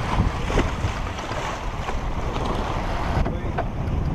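Wind buffeting the microphone over the rush of water along a sailing yacht's hull, with a few brief knocks; the high hiss thins out about three seconds in.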